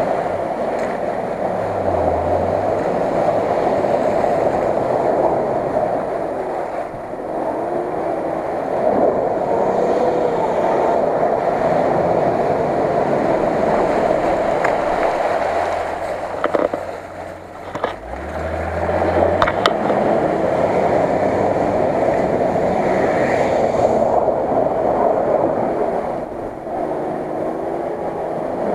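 Off-road Nissan Patrol on tractor tyres running under load as it wades through deep water, its engine droning with water splashing around the wheels. The sound drops away briefly after about seventeen seconds, then returns.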